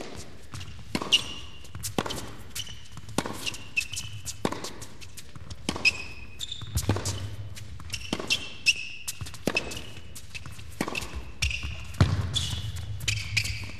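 Tennis rally on an indoor hard court: a serve, then racquet strikes and ball bounces about every half to three-quarters of a second for the whole point. Short high squeaks of shoes on the court come between the strikes, over a low hum of the hall.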